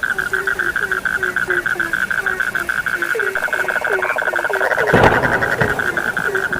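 Frogs calling in chorus: one keeps up a fast, steady pulsed trill while another gives short, lower calls about three times a second. A sudden louder, deeper sound comes about five seconds in.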